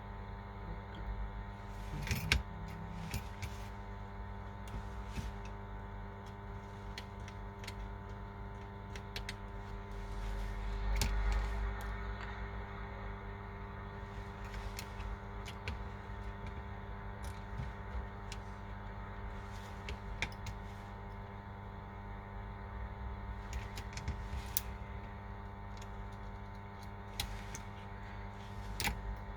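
Scattered small clicks and taps of hand tools on a phone being repaired, over a steady electrical mains hum.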